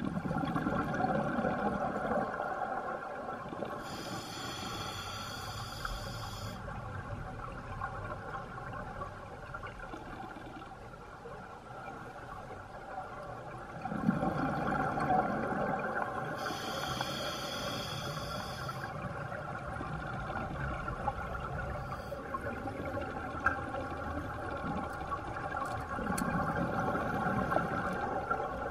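Scuba diver breathing through a regulator underwater. Exhaled bubbles gurgle out three times, about twelve seconds apart, and an inhale hisses through the demand valve twice in between, over a steady underwater hum.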